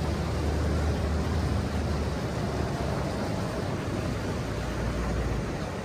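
Boat motor running steadily with a low drone, under wind noise on the microphone.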